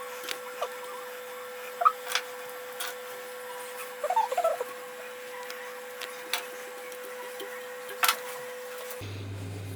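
Scattered light clicks and knocks from handling tools and material, with a few short squeaks in between, over a steady hum that changes to a lower hum near the end.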